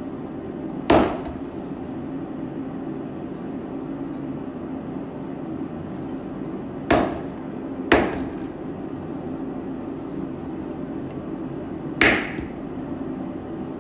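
Four blows of a copper-weighted rawhide mallet on a red-hot twisted square steel bar lying on a wooden stump: one about a second in, two a second apart midway, and one near the end. This is the bar being straightened after twisting.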